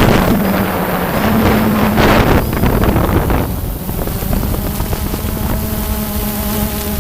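Quadcopter drone propellers humming steadily, with gusts of wind buffeting the microphone in the first half.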